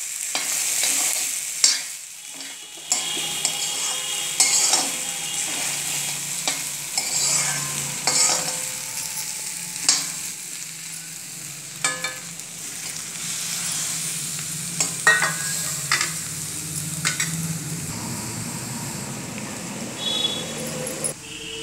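A metal spoon stirring and scraping potato pieces frying in a kadai, with irregular clicks of the spoon against the pan over a steady sizzle of hot oil. A low steady hum runs underneath from a few seconds in until near the end.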